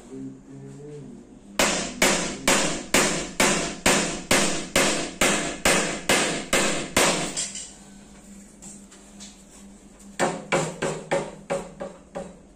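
Hammer driving nails into wood: a steady run of about fourteen ringing blows, a pause of a couple of seconds, then a quicker run of about six lighter blows.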